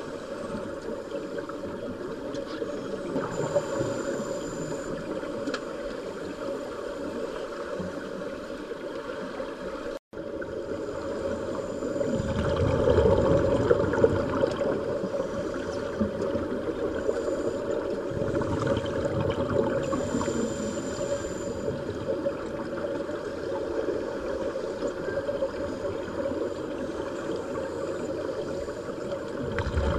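Muffled underwater gurgling and rumbling of scuba divers' exhaled bubbles, heard through the water. The sound cuts out for an instant about a third of the way in, and louder surges of bubbles follow soon after and again about two-thirds through.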